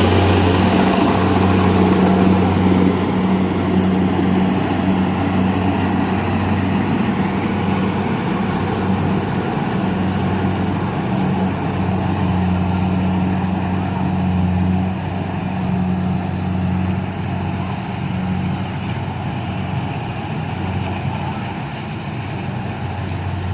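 Rice combine harvester's diesel engine running steadily with a deep, even hum and mechanical noise, gradually getting a little quieter toward the end.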